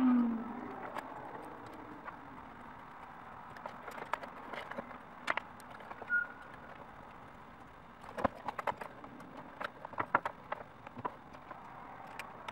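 Small clicks and taps of metal screws, standoffs and carbon-fibre plates being handled and fitted onto a plastic radio-control transmitter, coming in irregular clusters that grow busier from about eight seconds in.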